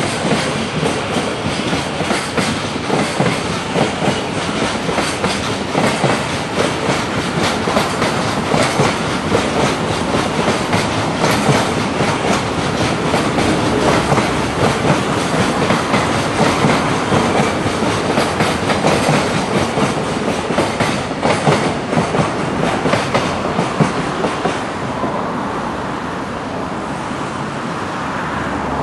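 Freight train container flatcars rolling past, their wheels clicking over the rail joints in a steady clickety-clack. The clatter thins out about 25 seconds in as the last wagon passes, leaving a quieter rumble.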